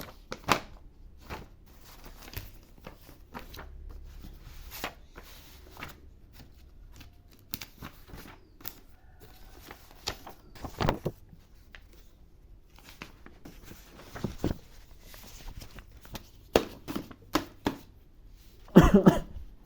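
Scattered clicks, knocks and rustling as things are handled and sorted, with a louder clatter near the end.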